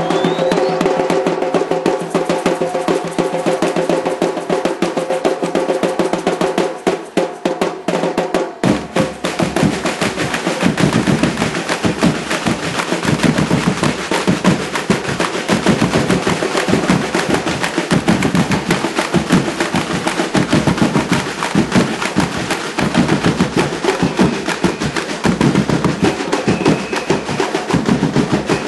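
Samba percussion band (batucada) playing. For about the first eight seconds a fast snare roll runs under a steady held tone, then the deep bass drums (surdos) come in and the full rhythm carries on.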